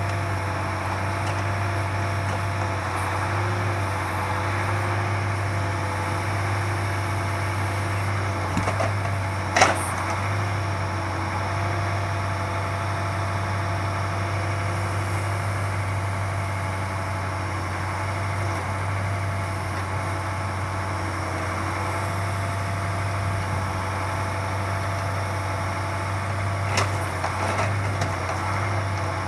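Truck engine running steadily, driving the hydraulic pump of an OMTL 70-02 timber loader crane. A single sharp knock about ten seconds in and a few lighter clatters near the end.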